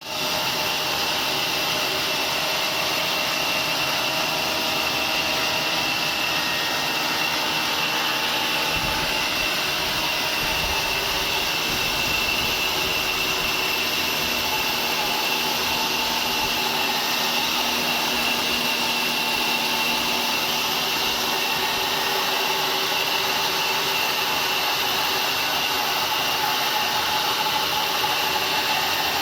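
Sawmill saw machine running steadily, a constant high whine over a loud hiss as it cuts wood, with a couple of brief low rumbles about nine and eleven seconds in.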